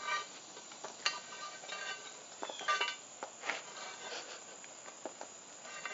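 Metal tongs clinking against a cast iron Dutch oven lid and the charcoal briquettes on it as the coals are lifted off. Several separate clinks and knocks, some with a short metallic ring.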